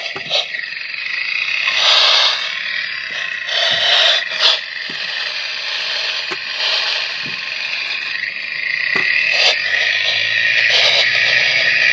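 Passenger-side CV axle of a 2016 Mitsubishi Outlander at its middle support bracket, heard through an electronic chassis-ear sensor clamped there while driving: a rough hiss that swells and fades, with scattered clicks. It is the same noise as before the axle was replaced, and the owner places its source at the axle's support bracket.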